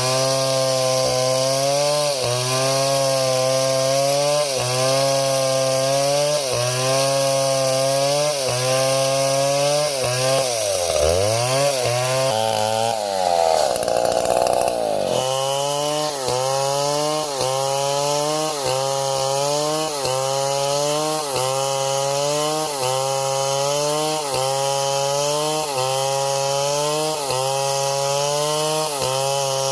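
Engine-driven saw cutting wood, its engine note dipping under load in a regular rhythm a little less than once a second and a half. About a third of the way through, the engine note drops low and climbs back before the rhythm resumes.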